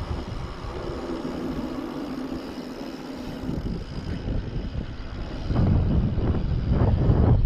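Wind rushing over the microphone and tyre noise as a mountain bike rolls downhill on asphalt; the rush gets louder about two-thirds of the way through.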